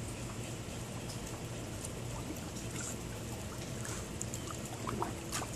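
Water lapping and light splashing as a dog paddles through a swimming pool, over a steady low hum, with a few short sharp splashes or clicks near the end.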